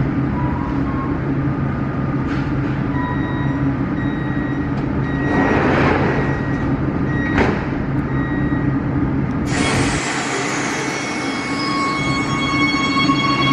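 Warsaw Metro train standing at the platform with its equipment humming. The doors slide shut about six to seven seconds in, ending in a sharp knock. About two seconds later comes a sudden hiss and a falling whine, then a set of steady electric tones as the train gets ready to pull out.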